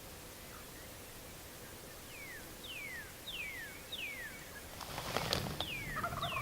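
A songbird singing a series of about six short, clear whistles, each sliding downward in pitch, spaced a little over half a second apart. About five seconds in, rustling and clicking join it.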